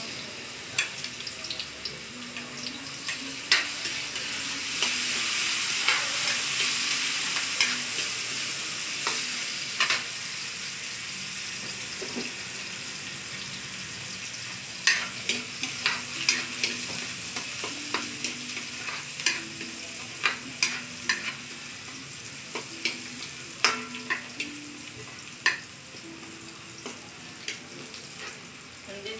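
Minced garlic sizzling in hot oil in a steel wok as it is sautéed, with a metal spatula scraping and clicking against the pan while it is stirred. The sizzle swells a few seconds in, then eases.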